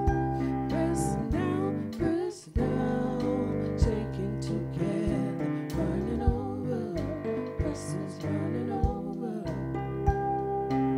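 Church music: instruments holding chords over a bass line, with sharp percussion hits and a voice singing a gliding melody. It drops out briefly about two seconds in.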